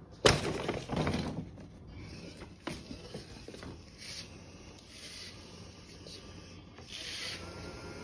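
Heavy plastic cat-litter bag crinkling and scraping across a wooden floor as a cat paws and noses at it, with a loud sudden rustle about a quarter second in, then scattered rustles and a few sharp clicks.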